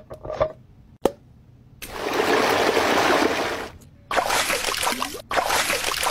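A few light taps and a sharp click on the face-mask jar, then wet, sticky smearing sounds as a thick glittery gel face mask is spread over skin with a silicone brush, in three long strokes.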